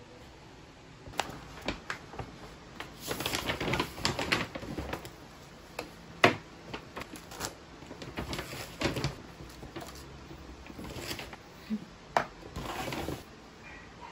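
Handling sounds on a desk: irregular clicks, taps and crinkly rustles as items in plastic packaging are picked up and set down, the loudest a sharp tap about six seconds in.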